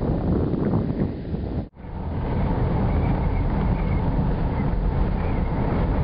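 Wind buffeting the microphone, a gusty low rumble. The sound cuts out sharply for an instant a little under two seconds in, then comes back as a steadier rumble.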